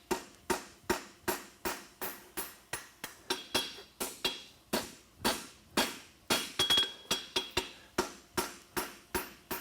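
A farrier's hammer striking a hot 3/8 x 1 inch steel horseshoe bar on the anvil in a steady rhythm, about three blows a second, each with a short metallic ring, as the heel of the shoe is forged.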